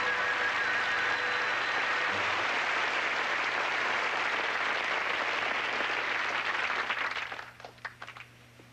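Studio audience applauding, dense and steady, then dying away about seven seconds in to a few last scattered claps.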